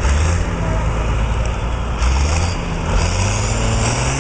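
Vintage diesel tractor engine running hard under load during a pull, its pitch climbing about three seconds in.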